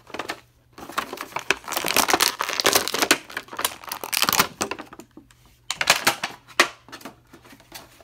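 Thin clear plastic bag crinkling as hands handle and pull at it: a dense crackle for about four seconds, then a few short crinkles.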